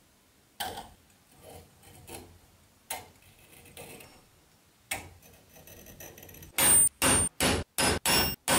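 A scriber scratching marks on a metal bracket, with a few light clicks as the square is moved. From about six and a half seconds in, a quick run of ringing metallic taps, about three a second, as a hammer strikes a centre punch to mark the hole centres.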